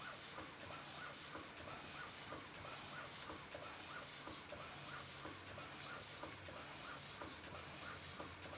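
Taylor Twin steam boat engine running steadily, its exhaust beats and knocks repeating evenly. The builder puts the knocking down to bearings not yet adjusted, and says the beats are unequal from side to side because the valve timing still needs tweaking.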